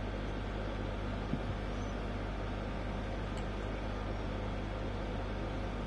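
Steady low hum and hiss of background noise, with two small clicks about a second and a half in as a T10 screwdriver tightens the balisong's pivot screw.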